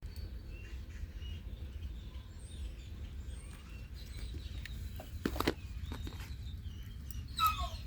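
Small birds chirping faintly over a steady low wind rumble, with two sharp knocks about five seconds in and a short, louder call that falls in pitch just before the end.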